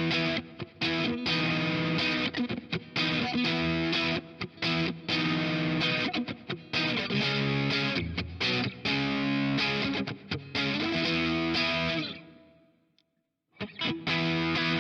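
Vintage V6H Icon HSS electric guitar played solo through a Kemper profiler with distortion, picking choppy riffs and chords. About twelve seconds in the playing rings out and stops, then starts again after about a second of silence.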